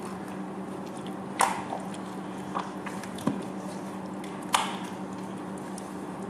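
Gloved hands mixing raw chicken pieces in a thick mayonnaise sauce in a stainless steel bowl: soft wet squishing, with two sharp clacks about one and a half and four and a half seconds in. A steady hum runs underneath.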